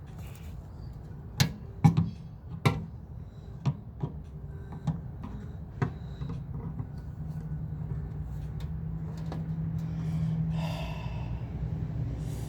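Sharp clicks and knocks on the metal parts of a microwave being taken apart by hand, about seven in the first six seconds, over a low steady hum; a short scraping rustle near the end.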